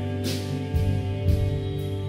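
Background music: held instrumental chords over a steady bass, with a soft swell in the high end about a quarter second in.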